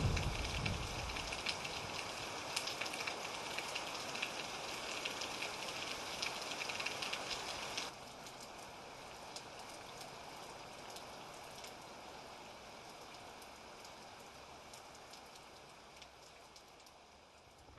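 Rain falling, a steady hiss with crackling drops, while the last of a low rumble dies away in the first second or so. About eight seconds in the rain drops suddenly to a quieter level and then slowly fades.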